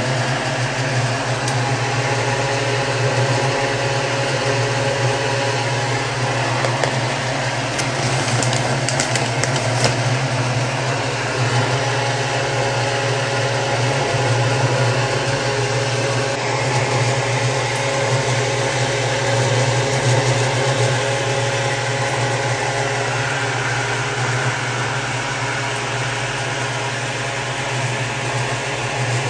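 Steady hum of a fan motor with an even hiss above it.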